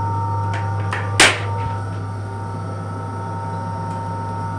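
Steady low hum of an M7 electric railcar, heard from inside its restroom, with one sharp knock about a second in.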